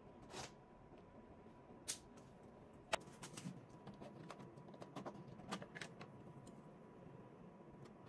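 Faint handling of plastic PTFE tubing: two sharp clicks about two and three seconds in, then a run of small clicks and light rubbing as the tube is fed into a push-fit fitting on the back of a 3D printer.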